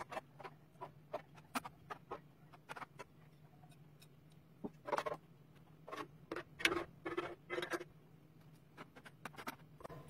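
Irregular light clicks and taps of a kitchen utensil against cookware while lasagne is layered in a baking dish, with a few fuller knocks in the second half, over a faint steady hum.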